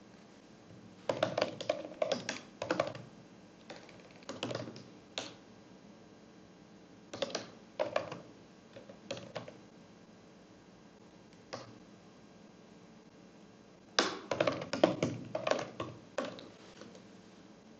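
Computer keyboard typing in short runs of quick keystrokes with pauses between; the longest runs come about a second in and again near the end.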